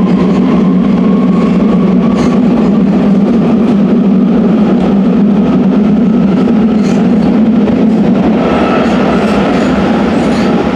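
Rome Metro train running through a tunnel, heard from inside the car: a loud, steady rumble of the wheels and running gear with a faint whine over it. A higher whine comes in near the end.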